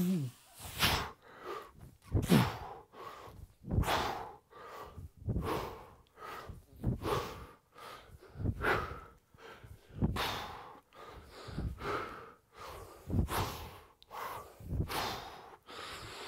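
A man's short, forceful breaths, one about every second and a half, timed to each rep of heavy two-handed kettlebell swings with an 80-pound bell.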